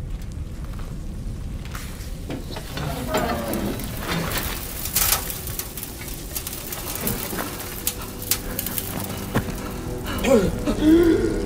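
Film soundtrack: a steady hiss of falling rain over a low rumble, with a man's pained gasps about three seconds in and again near the end.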